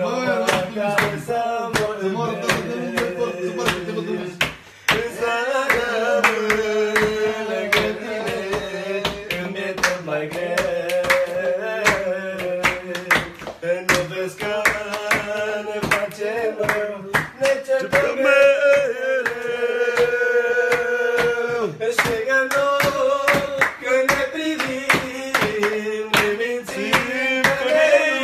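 Men singing a song together, with rhythmic hand clapping keeping the beat.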